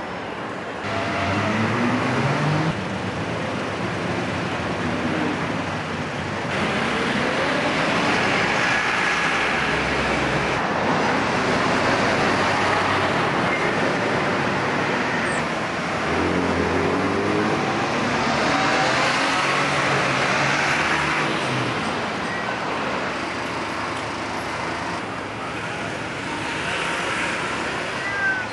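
City street traffic: cars and trucks passing on the road, their engines rising and falling in pitch as they go by. The sound changes abruptly several times at cuts in the recording.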